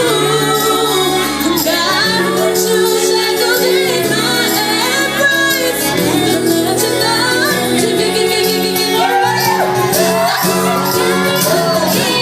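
Female pop vocal group singing live in harmony over instrumental accompaniment.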